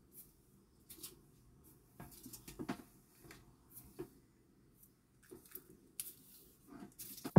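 Faint, irregular small clicks and rustles of objects being handled, coming every second or so.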